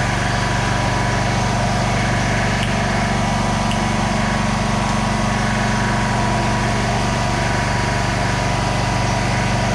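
A motor or small engine running steadily with a low, even hum and a fast, regular pulse.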